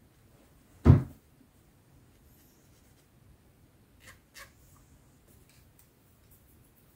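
Handling noise at a model-making workbench: a single loud thump about a second in, as something is knocked or set down, then two faint clicks and a few light ticks.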